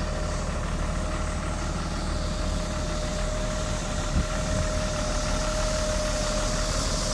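Hyundai Mega Truck diesel engine idling steadily, a low even rumble with a steady whine above it.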